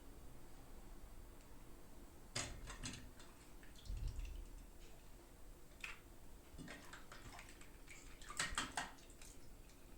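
Light clicks and taps of small plastic toy pieces and packaging being handled, in short clusters about two and a half seconds in and near the end, with a soft low thump around four seconds.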